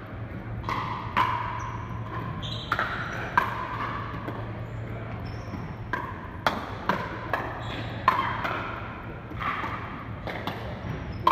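Pickleball paddles hitting a hard plastic ball, about a dozen sharp, hollow pocks at irregular intervals, each ringing briefly in the hall's echo.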